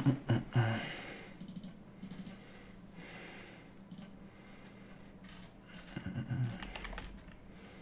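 Scattered clicks of typing on a computer keyboard, a few keystrokes at a time with pauses between them. A couple of short low sounds come near the start and about six seconds in.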